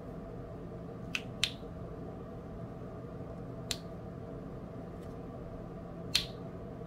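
Diamond painting drill pen tapping as rhinestones are picked up and pressed onto the canvas: four sharp clicks at uneven intervals, over a faint steady hum.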